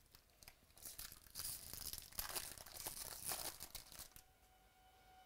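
The foil wrapper of a 2019 Bowman Jumbo baseball card pack being torn open and crinkled, a run of rips lasting about three seconds that starts about a second in.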